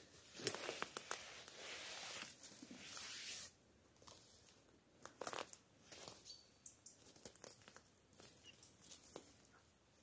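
Footsteps and rustling through twigs, branches and leaf litter on a forest floor, with sharp snaps and crackles, busiest in the first three and a half seconds and then quieter. A few faint, high, short chirps from a small bird can be heard in the distance.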